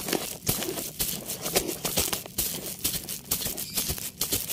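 Irregular crackling and rustling of root-bound potting soil, fibrous roots and a fabric planter bag being pulled and dug at by hand, around a mango turmeric clump.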